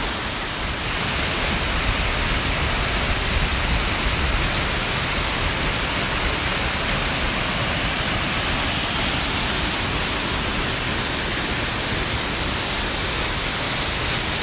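Spring-fed waterfall gushing out of the side of a mountain cliff: a steady rush of falling water.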